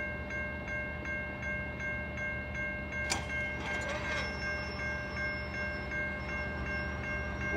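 Railway level-crossing warning bell ringing steadily at about three strokes a second while the crossing gates lower, signalling an approaching train. A low rumble runs underneath, and a single sharp click sounds about three seconds in.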